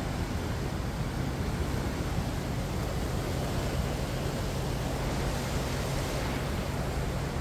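Swollen, muddy floodwater rushing over rocks beneath a bridge: a steady, even rush of water, with a low steady hum underneath.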